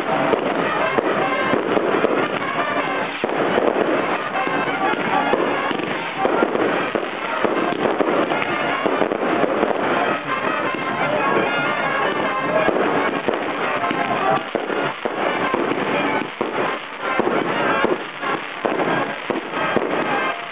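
Aerial fireworks going off in a dense, unbroken run of pops and bangs, many bursts close together.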